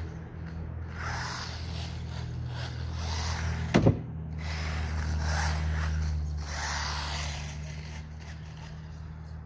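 Battery-powered RC car running across concrete, its motor and tyres whirring and swelling as it comes nearer and draws away, with one sharp knock about four seconds in.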